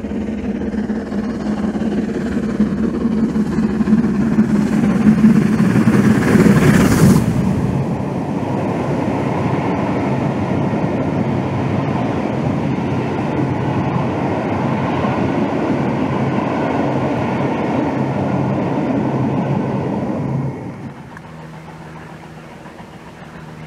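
Steam locomotive and its train of coaches passing close by, growing louder to a peak as the engine goes past about six to seven seconds in, then a steady rumble of coach wheels on the rails. About twenty seconds in the sound drops sharply to a much fainter, distant steam train.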